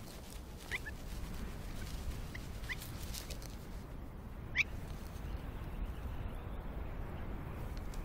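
Bird calling in a few brief, high chirps spaced over several seconds, the loudest about halfway through, over a low steady rumble.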